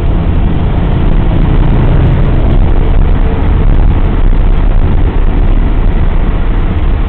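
Steady road and engine noise heard from inside a car's cabin, driving slowly in congested interstate traffic.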